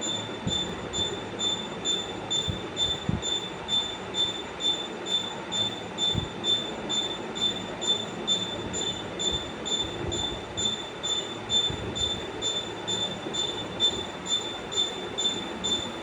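A high-pitched squeal pulsing evenly about three times a second over a steady rumble, from a spinning device squeaking once per turn.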